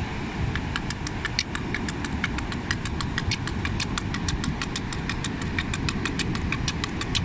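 Rapid clicking of small hard objects rattled in cupped hands, about seven sharp clicks a second, starting about half a second in, over a steady low rumble of wind and surf.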